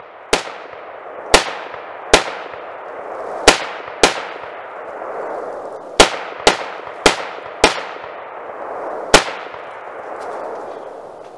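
AR-15 rifle in .223/5.56 firing ten single shots at an uneven pace over about nine seconds. Each sharp crack is followed by a long ringing echo that fades out.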